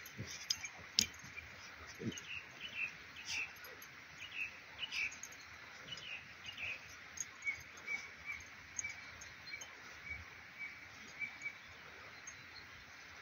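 A puppy digging in loose garden soil, its paws scratching and scraping the dirt in short, irregular strokes. Small birds chirp in the background, with a run of short repeated chirps in the second half.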